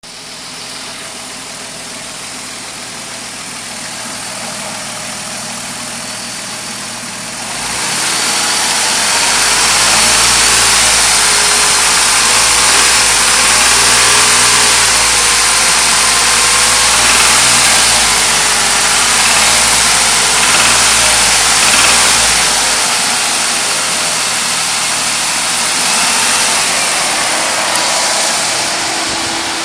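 1993 Ford Taurus SHO's 3.0-litre Yamaha V6 idling, then held at higher revs for about fifteen seconds with the pitch wavering, then dropping back toward idle. The engine has a knocking that shows up around 2500 rpm, which the owner cannot place between a chattering throwout bearing and a bad rod bearing.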